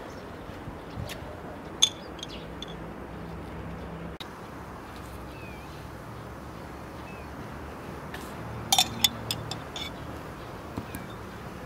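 A metal teaspoon clinking against a small glass jar while syrup is spooned over sponge cake: one sharp clink about two seconds in and a quick run of clinks about nine seconds in, over steady outdoor background noise.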